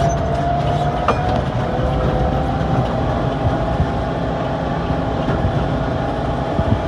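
Tractor running as it drives downhill towing an empty trailer: a steady low engine rumble with a held whine and a few sharp knocks from the rig.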